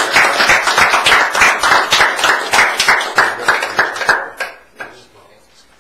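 A small group of people applauding with dense, rapid hand claps that thin out about four seconds in and die away soon after.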